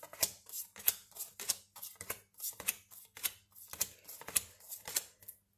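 A deck of oracle cards being shuffled by hand: a steady run of short card slaps, about four a second.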